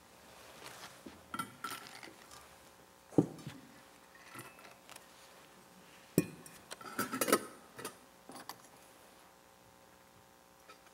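Metal and glass altar vessels being handled and set down: chalice, ciborium and glass cruets clinking and knocking against each other and the altar. Two sharp knocks about three and six seconds in, and a quick run of clinks just after the second.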